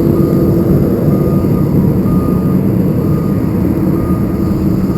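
Diesel engine of a heavy earth-moving machine running steadily, with its reversing alarm beeping about once a second.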